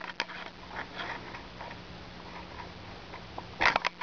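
A cat pawing and brushing against a camera held close to it: faint scattered clicks and rustles, then a louder cluster of scuffing and knocking on the camera about three and a half seconds in.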